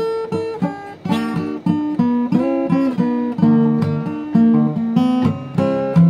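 Acoustic guitar playing a blues, plucked notes and strummed chords in a steady rhythm.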